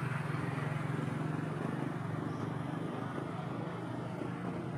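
Street traffic: motorbike engines running on the road, heard as a steady low rumble with a noisy haze over it.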